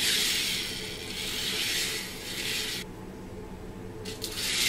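Stock K'NEX coaster car with plastic wheels, weighted with batteries, rolling along K'NEX track: a steady rattling, hissy wheel noise. It stops for about a second and a half in the middle and starts again near the end.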